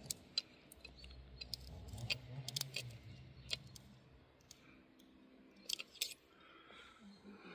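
Steel Torx L-keys clinking against each other in their plastic holder as a hand picks out the T25 key: a scatter of sharp metallic clicks, bunched around the second and third seconds and again near the end.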